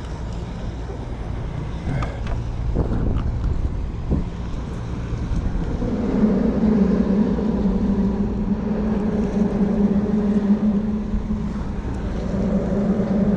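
A boat engine running steadily, its low hum coming in louder about halfway through, over wind rumble on the microphone. A few light knocks in the first few seconds.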